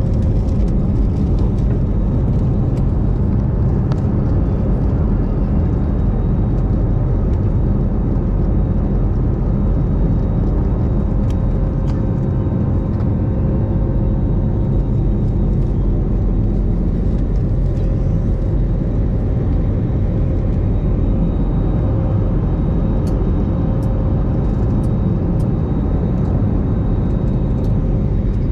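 Steady roar of a jet airliner's turbofan engines and rushing air, heard inside the cabin during the climb just after takeoff, with a faint steady hum under it.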